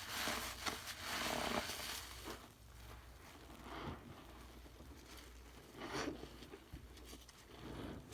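Crackling and crunching of crackles being squeezed: two long crunchy squeezes in the first two seconds, then quieter, scattered crackles with short bursts about four, six and eight seconds in.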